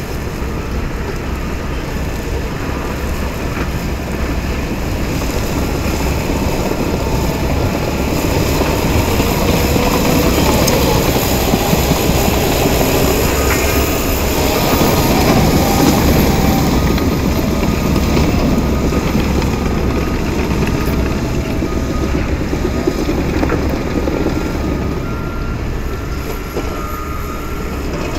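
Caterpillar crawler dozer's diesel engine running under load, with the clatter of its tracks as the blade pushes broken asphalt and soil; the sound is loudest in the middle.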